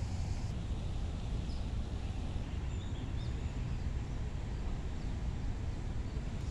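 Wind buffeting the microphone outdoors, a steady low rumble, with a few faint high bird chirps about two to three seconds in.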